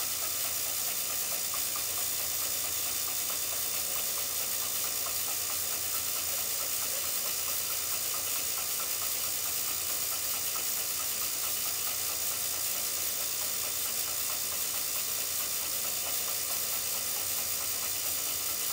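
W & J Barnes camelback drill press running under its electric motor and belt drive while the bit is fed down into a workpiece: a steady hiss with a low hum underneath.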